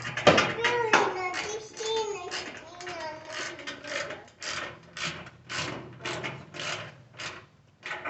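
Hand ratchet with a 10mm socket being swung back and forth on a fender bolt, clicking in short strokes about twice a second.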